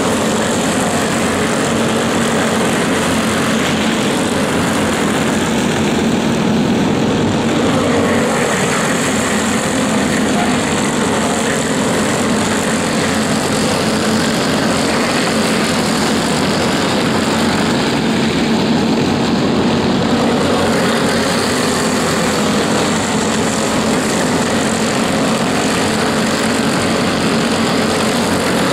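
Racing go-kart engines running at speed: a continuous loud buzz whose higher part eases and swells back twice as the karts lap.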